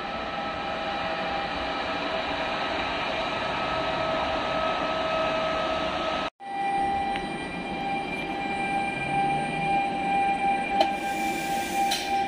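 An E464 electric locomotive hauling Vivalto double-deck coaches runs past close by: a steady electric whine over the rolling noise of the train. The sound breaks off for an instant about halfway through, then the coaches keep rolling past with a single sharp knock near the end.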